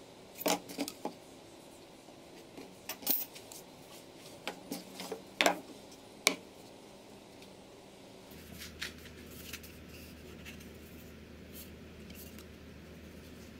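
Plastic PVC pipe, cap and a steel ruler handled on a wooden table: a scattering of sharp clicks and knocks in the first six seconds, then fainter handling over a low steady hum.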